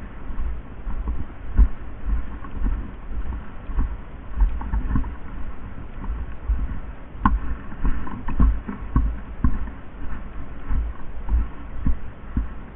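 Irregular low thuds and rustling from an airsoft player moving with a body-worn camera, with one sharp click about seven seconds in.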